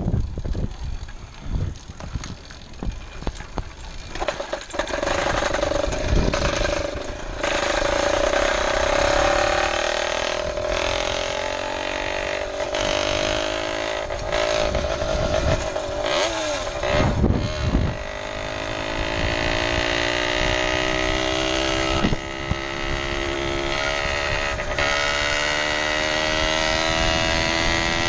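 Small two-stroke case-reed bicycle engine with a 47 mm piston, running while the bike is ridden. Its sound starts as uneven knocks, then its pitch climbs as it speeds up. The pitch drops briefly past the middle with a few thumps, then rises again and holds high.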